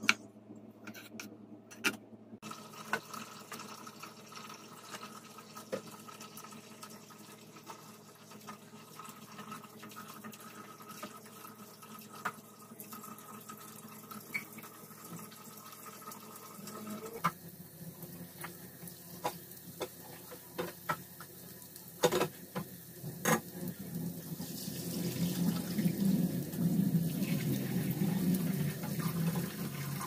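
A few knife chops on a wooden cutting board at the start. Near the end, chopped red onion starts sizzling in hot oil in a nonstick wok, after a couple of knocks from onion going into the pan.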